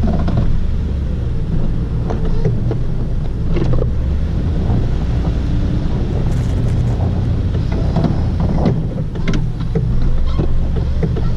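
Chevy 2500HD's 8.1-litre V8 engine running steadily while plowing snow, with several short knocks and clatters over it.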